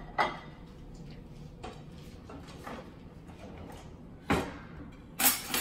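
Kitchenware being handled: a ceramic plate is set down on a granite countertop with a sharp knock. A few lighter clatters follow, then two louder knocks near the end, the last with a short metallic ring, like a utensil or pan striking the counter.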